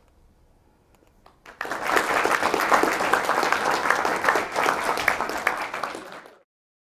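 Audience applauding: a dense patter of handclaps that starts about a second and a half in, then fades and cuts off suddenly near the end.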